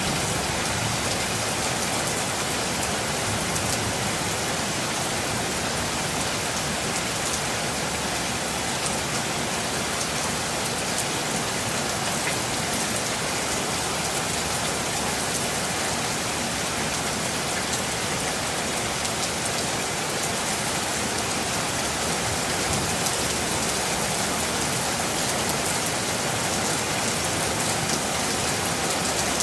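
Steady rain falling on a surface, with a dense patter of individual drops over an even hiss.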